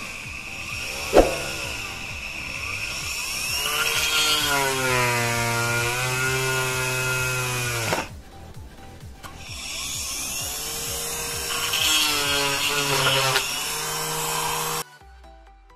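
Homemade drill built from a 775 DC motor with a keyed chuck, running and drilling into a wooden block: its whine sags and recovers in pitch as the bit loads up, with a sharp knock about a second in. The motor stops about 8 s in, spins up again a couple of seconds later, and cuts off near the end.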